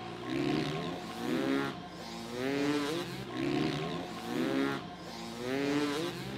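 Motocross bike engine revved in repeated short rising blips, about one a second.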